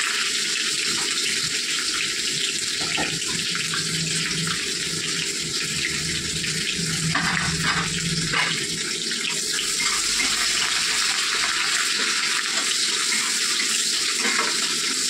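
Chopped onion sizzling in hot oil and ghee in a kadai, a steady hiss, with a spatula stirring it near the end.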